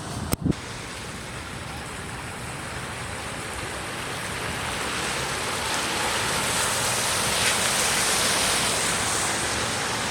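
Steady rushing noise of surf and wind, growing gradually louder over the second half. A short knock sounds just after the start.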